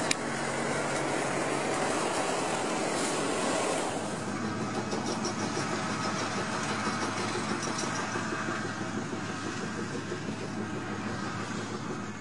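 An underground pipe-laying machine's engine running steadily. There is a sharp click right at the start, and the higher-pitched part of the noise eases about four seconds in.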